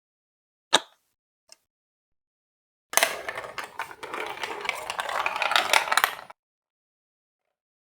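A single sharp click about a second in, then from about three seconds in a dense clatter of marbles rolling and rattling along a plastic Lego Duplo block track for about three seconds, stopping abruptly.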